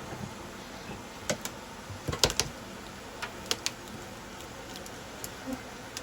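Scattered sharp clicks and knocks of tools and boards being handled while a honeybee colony is opened up. The loudest is a quick cluster of knocks about two seconds in.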